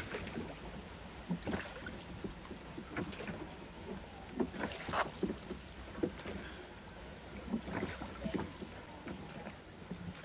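Rowboat being rowed: the oars dip and pull through the water in a steady rhythm, with a short stroke sound about every second and a half.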